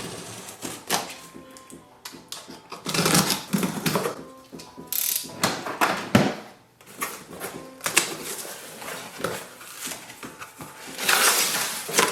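Cardboard printer box being opened and its packaging handled: rustling, scraping, clicks and knocks, with several louder noisy bursts like tape or cardboard being pulled and torn.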